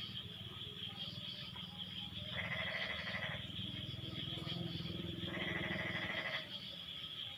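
Frog chorus: a steady high trill and a low, rapid croaking go on underneath, while a louder bleat-like frog call about a second long comes twice, about three seconds apart.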